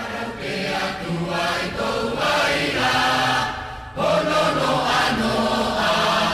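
Music of many voices chanting together, swelling in, then dropping away briefly before coming back louder about four seconds in.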